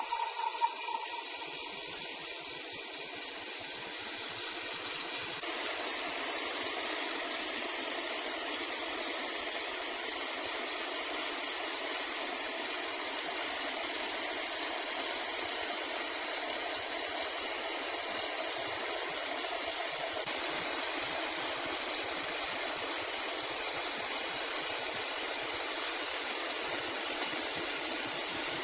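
Machinery running steadily with a hissing, rattling noise that shifts slightly about five seconds in.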